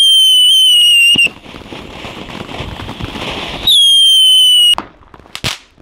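Ground fountain firework spraying sparks. A hissing rush is broken by two loud, piercing whistles that sag slightly in pitch, one at the start lasting just over a second and another about two-thirds of the way through. A few sharp cracks follow near the end.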